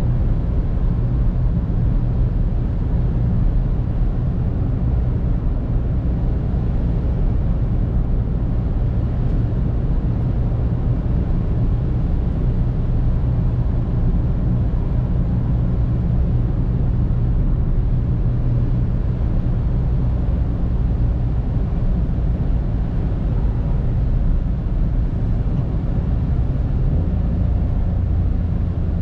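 In-cabin sound of a Mitsubishi Space Star 1.2 MIVEC three-cylinder engine pulling steadily at cruising speed, with tyre and road noise from a wet road. The engine note drops near the end.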